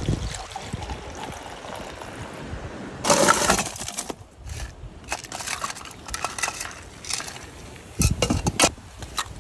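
Iced coffee being made in a paper cup: coffee pouring in from a jug, then ice cubes rattling and clinking into the cup in two loud bursts with scattered clinks between them.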